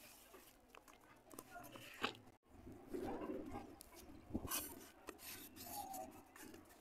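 Wet red clay being scraped up and pressed together by hand in a steel plate: faint squishing and scraping, broken by a few sharp ticks of fingers and clay against the metal.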